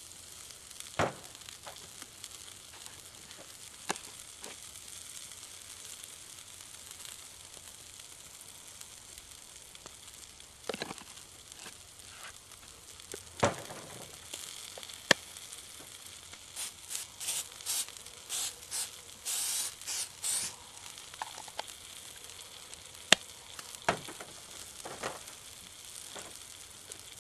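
Rib steak sizzling steadily on a hot grill plate over wood coals in a folding camp stove, with scattered sharp pops. A little past halfway comes a run of louder hissing spurts, several in a row.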